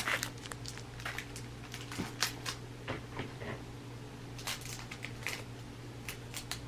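Baseball cards being handled and set down: scattered soft clicks and light rustles, over a steady low hum.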